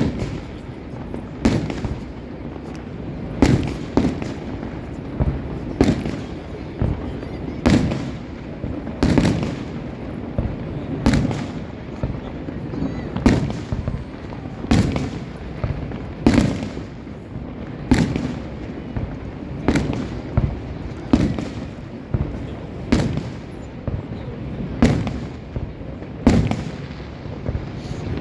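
Aerial fireworks bursting, one sharp boom about every one to two seconds, over a steady murmur of the crowd.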